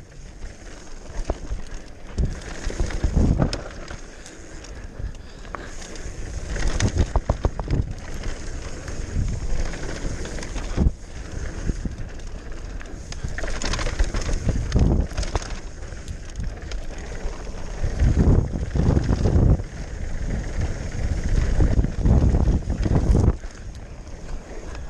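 Mountain bike riding down a trail: wind noise on the microphone with the rattle and knocks of the bike over rough ground, coming in several louder bursts.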